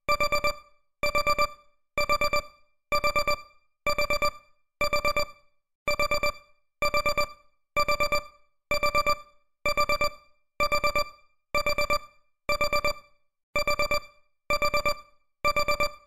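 Electronic timer alarm beeping: short bursts of rapid beeps repeating about once a second, signalling that the countup timer has ended.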